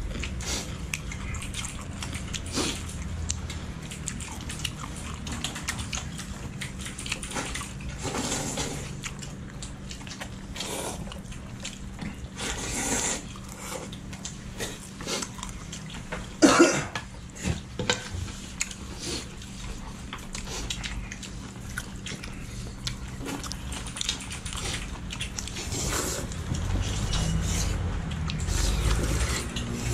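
People eating black-bean noodles from bowls with chopsticks: scattered clicks of chopsticks against bowls and wet slurping and chewing, with one louder sudden noise about halfway through.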